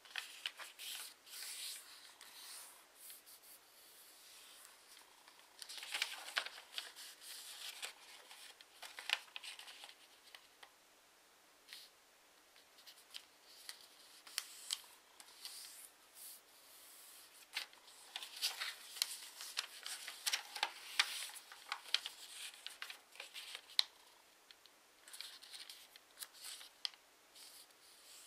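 A sheet of origami paper being folded and creased by hand on a tabletop: rustling and crinkling, with sharp little crackles as fingers press and run along the folds. It comes in clusters with short pauses between.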